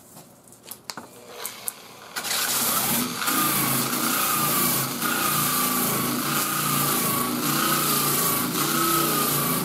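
A few light clicks, then about two seconds in a Warrior 10-amp 7-inch variable-speed electric polisher/sander starts and runs steadily. Its sanding disc grinds the paint back around the filled repair on a car body panel, and the motor whine wavers slightly in pitch as it is pressed and moved. The sanding widens the area past the repair so the filler won't run into sand scratches.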